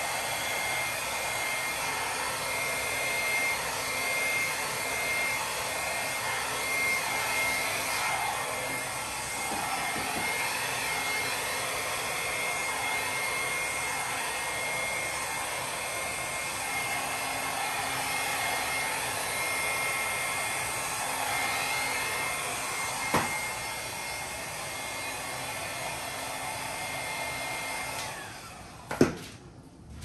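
Hand-held hair dryer running steadily with a thin high whine over its blowing, pushing wet acrylic paint outward across a canvas. It cuts off near the end, followed by a sharp knock.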